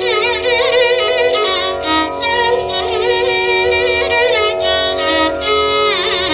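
Carnatic violin playing ornamented, gliding phrases in raga Bilahari over a steady sruti drone.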